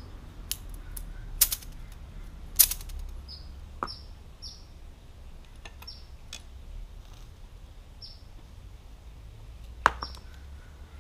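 Sharp metal clinks and knocks from hand work on a car's front suspension, a handful of separate strikes with the loudest three spread out. A small bird chirps short, high, falling notes about every second in between.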